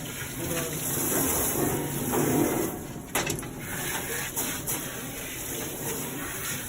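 Water spraying onto a dog's coat during a rinse: a steady hiss, with a sharp click about three seconds in.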